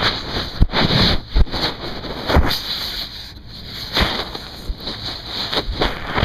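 Water running and splashing over a waterproof camcorder as it is rinsed of salt water, with irregular gushes and knocks against the camera body.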